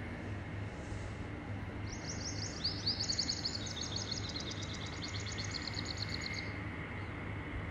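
Birds chirping in quick high trills, starting about two seconds in and fading out near the end, over a steady low hum and hiss.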